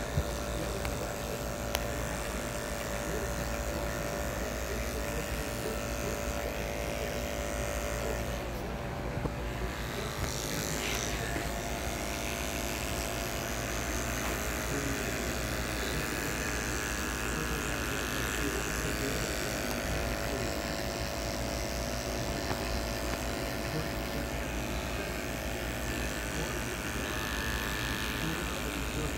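Cordless electric hair clipper running with a steady hum as its blade cuts close-cropped hair along the side and back of the head.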